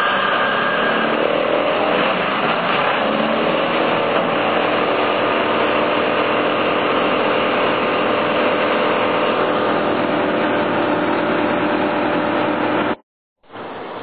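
Tow-behind wood chipper running steadily with its engine at speed, loud throughout. It cuts off suddenly about 13 seconds in, leaving fainter background sound.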